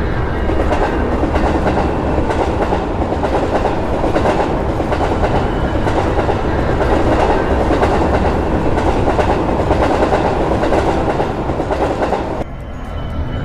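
A passing train: a steady rumble of wheels on rails, with a clickety-clack over the rail joints. It cuts off suddenly about a second before the end.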